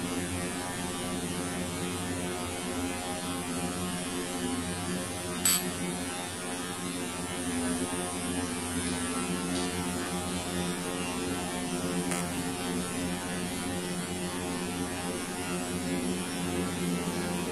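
Steady electrical hum with a few light clicks, the loudest about five and a half seconds in, as the plastic parts of a water-purifier booster pump head are handled.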